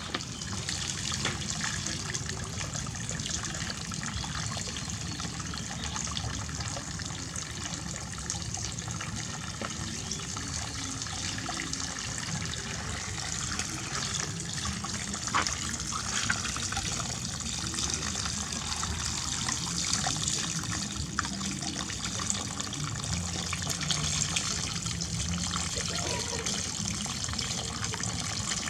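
Water running steadily from a tap, as for a monkey's bath, with a few brief knocks and splashes.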